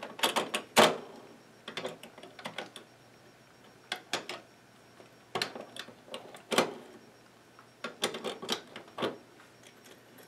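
Irregular clicks and knocks of a Koolance liquid-cooling water block and its tubing being handled and lined up over the CPU socket, hard plastic and metal parts tapping together. The loudest knocks come about a second in and about six and a half seconds in.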